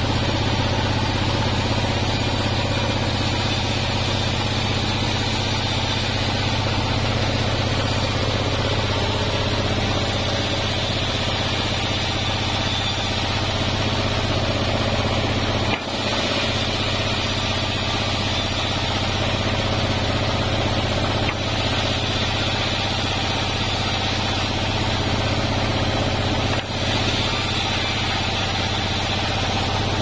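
Band sawmill running steadily with a deep motor drone as the blade cuts lengthwise through cananga (ylang-ylang) wood, with a steady hiss from the cut. The loudness dips briefly three times.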